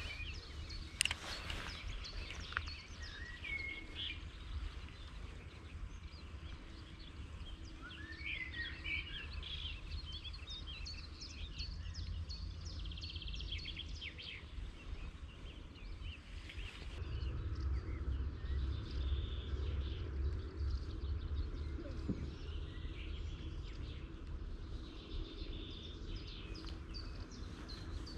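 Small birds chirping and calling now and then over a steady low rumble that grows stronger about two-thirds of the way through. A sharp click sounds about a second in.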